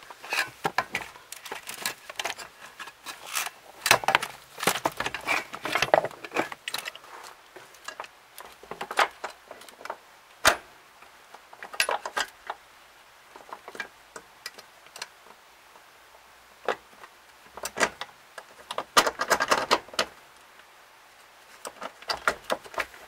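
Irregular metallic clinks, taps and rattles from hand tools and metal parts as a manual pedal assembly is fitted under a car's dashboard. They come in scattered clusters with short quiet gaps between them.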